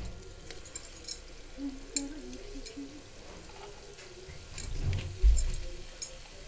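Gulab jamun dough balls deep-frying in oil at medium heat in a kadai: light, scattered crackling and popping from the oil. A dull low thump comes about five seconds in.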